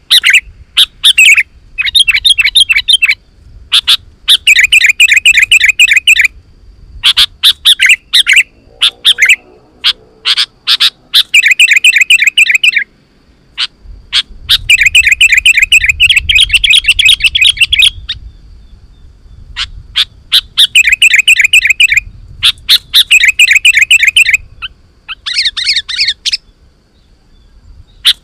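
Sooty-headed bulbul (kutilang) singing vigorously: loud bursts of fast chattering notes in phrases of one to four seconds, with short pauses between them.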